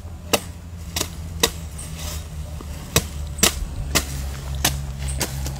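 Machete chopping a young green (jelly) coconut: a string of sharp, irregularly spaced whacks, about seven in all, as the blade cuts into the husk.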